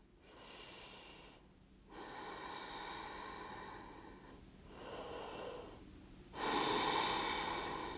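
A person breathing audibly close to the microphone: four rushes of breath, each about one to two and a half seconds long, the last one, about six seconds in, the loudest.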